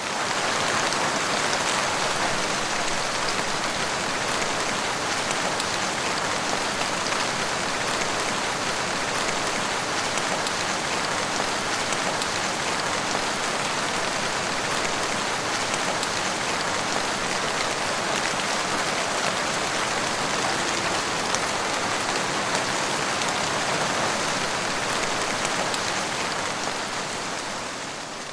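Heavy rain falling steadily on a car's windshield. It fades in at the start and fades out near the end.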